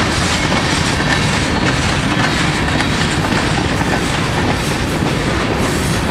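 Freight train's covered hoppers and tank cars rolling past, a loud, steady rumble of steel wheels on rail with the irregular clack of wheels passing over rail joints.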